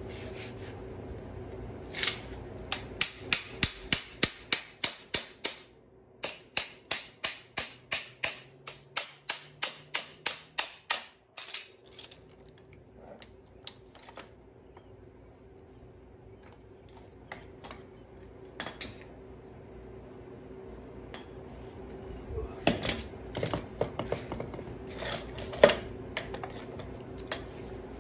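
Hand ratchet clicking in a steady run of sharp metallic clicks, about three a second, as the screw of a strut spring compressor is turned, with a short break partway and a pause after; near the end, a few louder scattered metal clinks of tools being handled.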